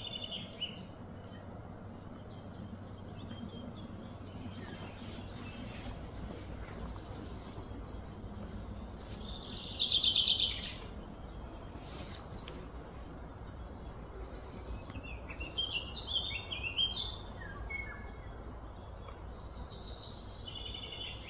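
Wild birds chirping and calling, with one louder rapid trill that falls in pitch about ten seconds in, over a steady low background hum.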